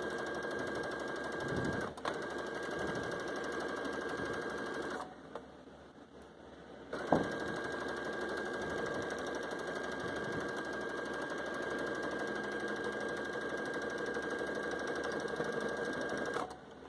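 Electric sewing machine stitching the curved seam of a fabric pocket: its motor runs with a steady whine for about five seconds, stops for about two seconds, then starts again with a click and runs on until it stops shortly before the end.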